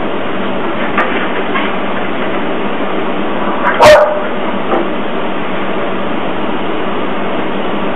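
A dog barking: one loud bark about four seconds in and a few fainter ones, over a steady hiss.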